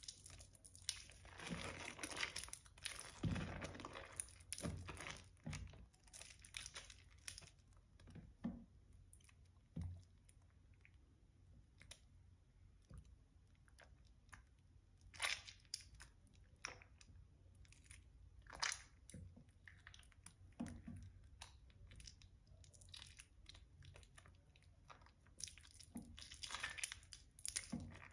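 Soaked, mushy Palmolive bar soap being squeezed and crumbled by hand in a tub of soapy water, giving soft wet crunching and crackling. The crackles come in a dense run over the first several seconds and again near the end, with scattered single crackles in between.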